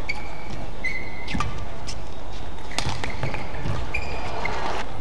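Badminton rally: sharp racket strikes on the shuttlecock, two of them about a second and a half apart, and short high squeaks of court shoes on the mat, three times, over steady hall noise.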